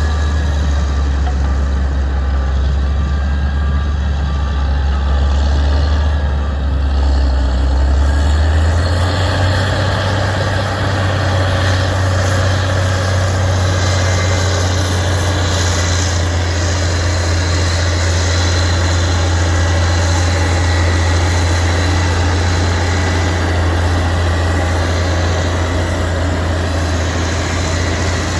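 Heavy diesel engine of an earthmoving machine running steadily under load, its note stepping up slightly about eight seconds in. A reversing alarm beeps at an even rate for the first few seconds.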